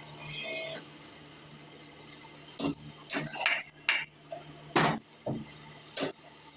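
Steady hum of the electric motor on a flywheel-grinding rig. From about two and a half seconds in, a string of sharp metallic clinks and knocks sounds at irregular intervals.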